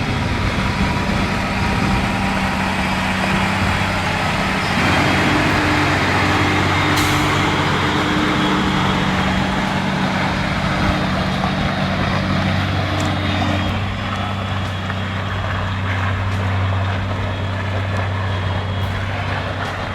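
Heavy logging truck's diesel engine running steadily, working harder and louder from about five seconds in until near fourteen seconds, then settling back.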